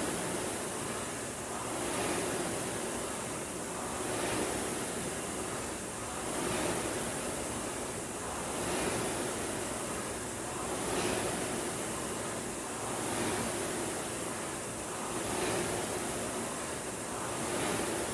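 Concept2 indoor rower's air flywheel whooshing in even swells, one per stroke, a little over two seconds apart: a steady rate of about 26 strokes a minute.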